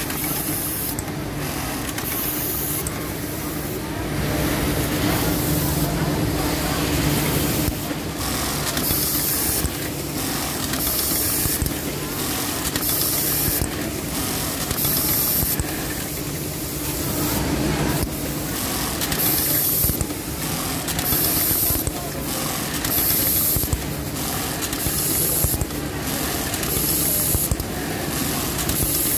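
Brother button-sewing machine with an automatic button feeder running: a steady hum from the vibratory bowl and machine, short hissing bursts of compressed air about every two seconds as buttons are fed, and quick mechanical clicks and stitching.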